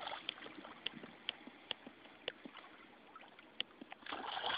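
Shallow water splashing lightly as a small dog wades at the shore, with a few sharp ticks scattered through it. The splashing grows louder and steadier about four seconds in.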